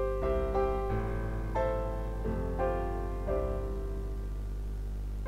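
Background instrumental music: a gentle melody of held notes that change every half second or so.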